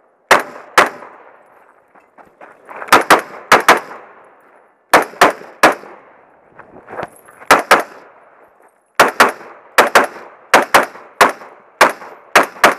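Shots from a scoped semi-automatic carbine, fired mostly in quick pairs with a second or two between groups, each crack followed by a short echo.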